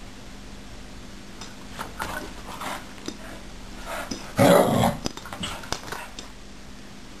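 Cat and small dog squabbling over a pet bed: a few short growls, then one louder growl about four and a half seconds in, followed by a few brief sharp noises.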